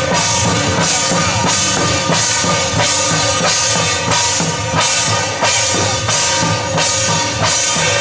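Jumping-drum troupe playing: a waist drum beaten with sticks, and pairs of hand cymbals crashed together on a steady beat, about three crashes every two seconds.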